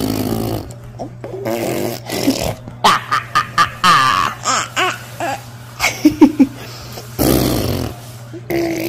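Laughter in short bursts, a baby's giggles and babble among it.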